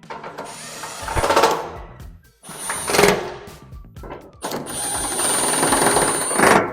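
A handheld power tool running in three bursts with a thin high whine, the last one longer and steady, as fasteners are driven in.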